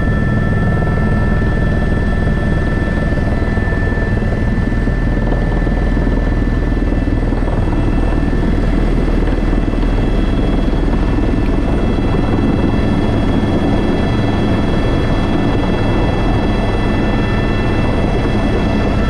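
Airbus H125 (AS350 B3) helicopter running in flight: the steady low thrum of the main rotor under a whine of several steady high tones from its turbine.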